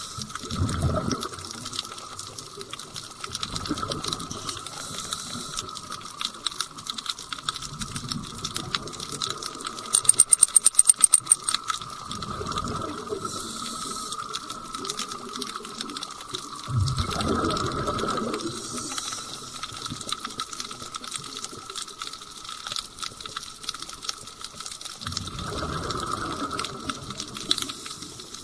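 Underwater sound of scuba regulator exhaust bubbles: a low gushing burst every several seconds, the strongest about 17 seconds in, over steady crackling clicks and a constant hum. About ten seconds in, a quick run of about ten sharp high ticks lasts a second and a half.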